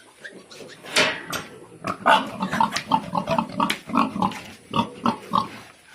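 Domestic pigs grunting, a rapid run of short grunts starting about a second in.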